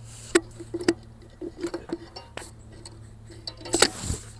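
Steel bolts clinking and tapping against metal as they are handled and set in place: a scatter of sharp clinks, the loudest near the end, over a low steady hum.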